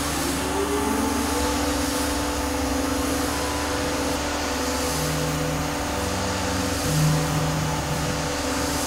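Tormach PCNC 1100 mill's axis drive motors whining as the table is jogged. One tone rises in pitch over the first second or so and then holds steady, and short lower tones come in around five and seven seconds in, all over the machine's steady electrical hum.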